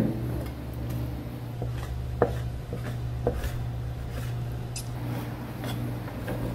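Chef's knife chopping cuttlefish tentacles on a plastic cutting board: a few sharp knocks, the loudest a little over two seconds in, among fainter taps, over a steady low hum.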